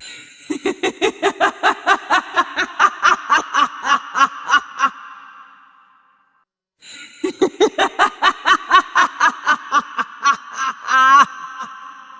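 A woman's evil, cackling laugh: a rapid run of 'ha' syllables lasting about five seconds, then after a short pause a second run that ends in a high, wavering trill, each with an echoing tail.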